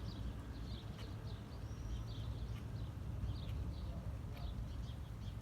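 Small birds chirping over and over, short high chirps several times a second, over a steady low rumble.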